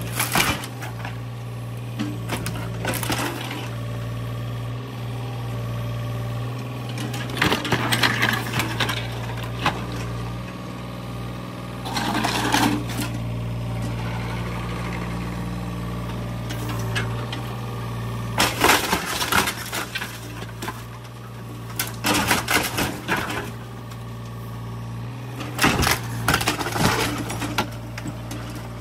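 Yanmar mini excavator's diesel engine running steadily while its bucket rips into an old wooden garage. Wood cracks and splinters and boards and roofing crash down in repeated bursts.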